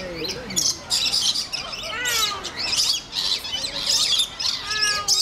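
A flock of lorikeets screeching and chattering: harsh, high calls overlapping one another almost without a break, with a few falling calls about two seconds in.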